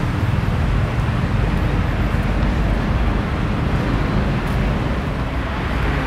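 Steady outdoor background noise: a heavy low rumble with hiss above it, even throughout, with no distinct events.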